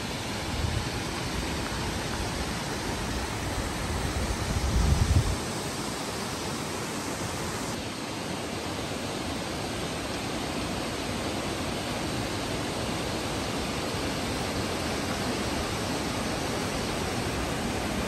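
Waterfall cascading down a rocky gorge: a steady rush of falling water. A low rumble swells briefly about four to five seconds in.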